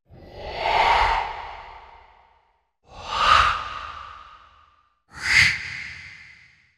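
Three breathy, sigh-like horror sound effects, one after another. Each swells quickly and then fades away over about two seconds.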